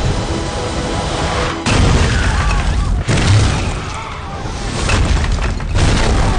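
Action-film sound effects: heavy booms and crashing impacts, with fresh hits about a second and a half in, about three seconds in and near the end, under a dramatic background score.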